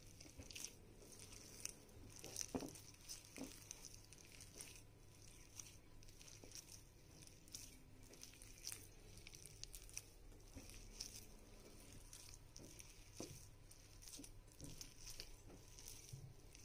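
Faint, irregular soft clicks and squishes of a hand kneading whole wheat dough in a bowl.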